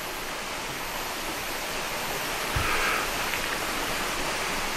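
Steady, even rushing noise in the night air, with one soft low knock about two and a half seconds in.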